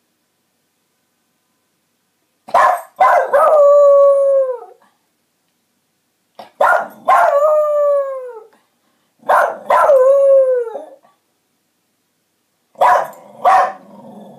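Small dog howling in four bouts. Each bout starts with a couple of sharp yips and runs into a long howl that slowly falls in pitch; the last bout is shorter. The howling is set off by a fire siren, which is not heard under it.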